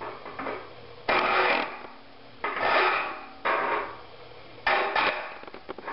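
A saw file rasping across the teeth of a hand rip saw as it is sharpened: four separate strokes of about half a second each, filing straight across the teeth, with light clicks between the strokes as the file moves to the next tooth.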